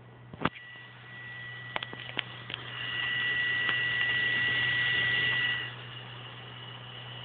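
Small electric fan running, with a steady low hum and a high whine that grows louder about three seconds in and falls back shortly before six seconds. A few light clicks and knocks come in the first three seconds.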